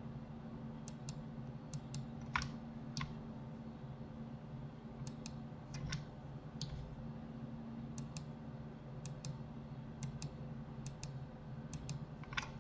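Irregular clicks of a computer mouse and keyboard, scattered a second or so apart, the sharpest a little over two seconds in, over a steady low hum.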